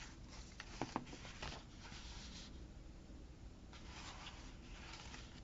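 Faint rustling of paper sticker sheets being handled and leafed through, with a few soft clicks in the first second and a half.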